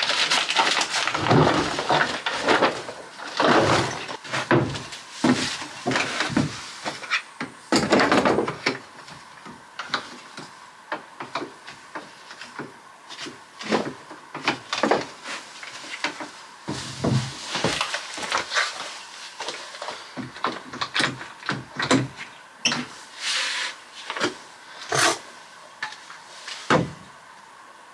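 Wooden floor joists being handled by hand: timbers knocked, shifted and scraped against each other, loudest and busiest in the first several seconds. Later come sparser sharp clicks and knocks as one-handed bar clamps are fitted to the frame.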